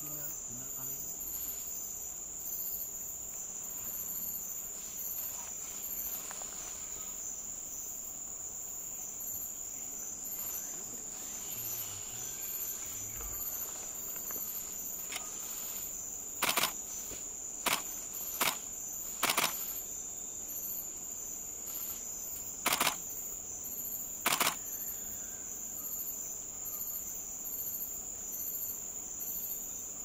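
Steady high-pitched shrill of tropical forest insects, droning without a break. In the second half, a handful of short, sharp clicks stand out above it.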